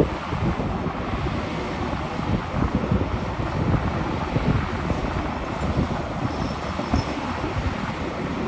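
SANY SY500H 50-ton excavator at work, its engine and machinery running with a steady rumble.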